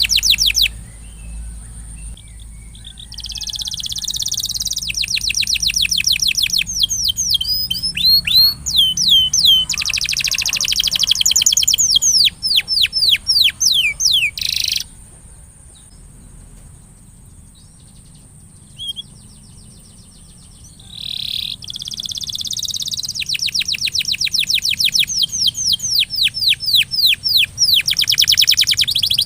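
Domestic canary singing in long phrases of rapid trills and repeated falling whistled notes, with a pause of several seconds partway through.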